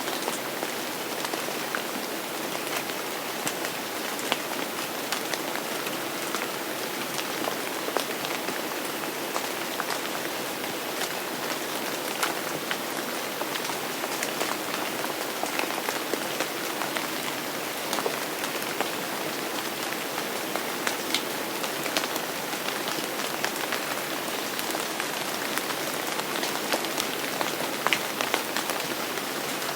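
Steady rain falling on a hard surface, an even hiss with many close individual drops ticking sharply through it.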